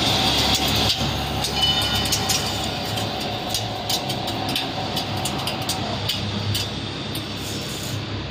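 CNC pipe-threading lathe running, its chuck spinning, with a steady mechanical hum. A steady whine runs over it and cuts off about six seconds in, with scattered sharp metallic ticks in the first two thirds.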